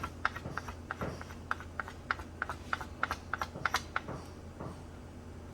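Quick irregular clicking and scratching, several ticks a second, as hair and debris are worked out of a Wahl electric clipper's blade teeth during cleaning.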